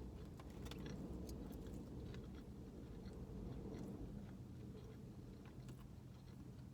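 A person chewing Chinese takeout food close to the microphone, with scattered small wet mouth clicks, over a steady low hum.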